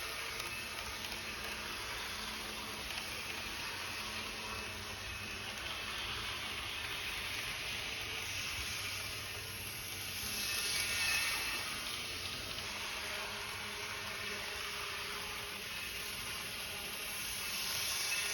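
TOMIX N gauge KiHa 120 model railcars running on tabletop track: a steady whirring hiss of small motors and wheels on rail. It swells louder twice, about ten seconds in and again near the end, as a train passes close by.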